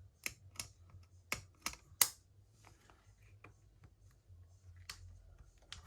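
Irregular sharp clicks and taps of a smartphone and small tools being handled and pressed on a repair bench, about nine in all, the loudest about two seconds in.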